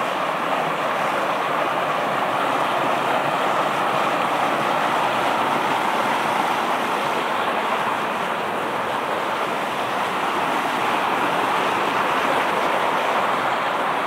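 Shallow rocky stream rushing over stones in small rapids: a steady, unbroken rush of water.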